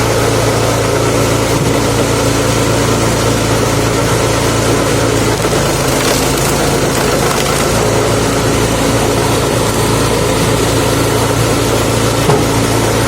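Lifan 6.5 hp single-cylinder petrol engine of a homemade screw-cone log splitter running at a steady speed, with a brief knock near the end.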